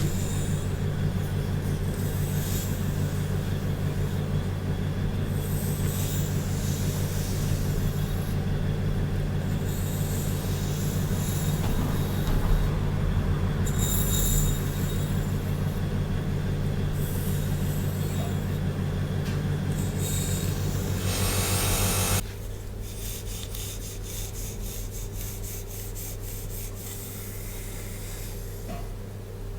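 Close-miked brushing and rubbing through hair over a steady low hum. About 22 seconds in, the hum and the rubbing drop away, leaving light, rapid scratching.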